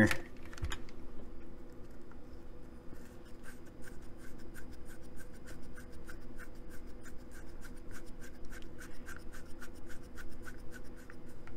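Hand Allen driver threading an engine mount bolt up through the aluminium chassis plate: small scratchy ticks from the driver and bolt, several a second from about three seconds in, as the bolt turns in toward snug.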